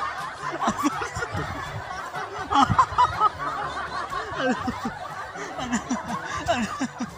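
Young men laughing and snickering in short, broken bursts, loudest about two and a half seconds in.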